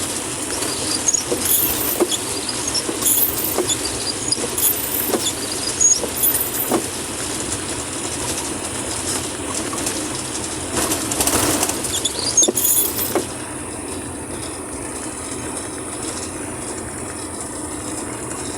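Vehicle travelling on a rough, wet road in heavy rain: a steady rumble of road and engine noise with irregular knocks and high squeaks from the vehicle, and a louder rush of noise about eleven seconds in, after which it settles into a quieter steady rumble.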